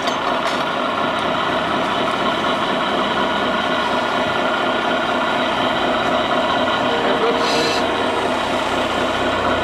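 Steady idling truck-engine drone from the lined-up radio-controlled model trucks' sound units, running without pause.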